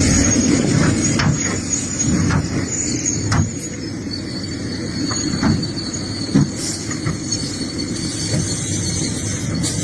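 Excavator working in rocky soil: its diesel engine runs steadily under a high metallic squeal, with scattered short knocks and clanks of steel on rock.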